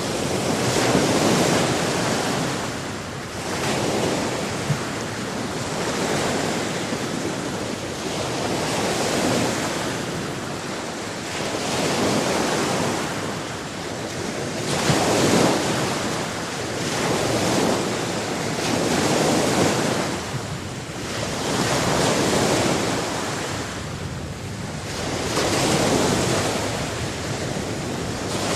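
Sea waves breaking and washing on a shore, the surf swelling and ebbing every few seconds.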